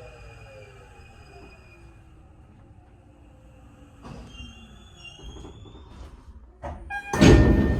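Tokyo Metro 8000-series train, set 8104F, braking to a stop, its motor whine falling steadily in pitch. About seven seconds in, the doors fly open with a sudden loud bang, and the three-tone door chime begins right at the end.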